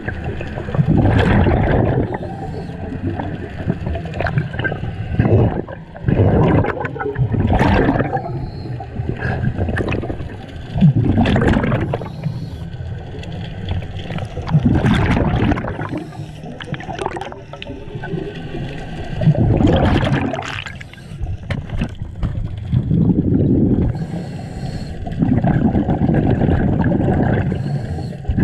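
Scuba diver breathing underwater: the regulator's rush on each breath and the bubbling rumble of exhaled air, in surges that come every few seconds.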